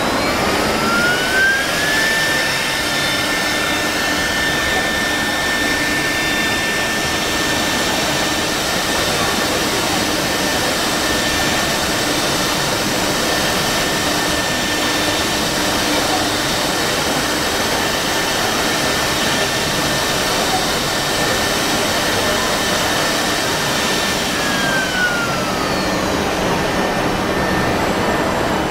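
Multi-spindle CNC router carving a wooden door panel. A spindle's high whine rises in pitch over the first two seconds, holds steady, and falls away about four seconds before the end, over a steady rushing noise of the machine at work.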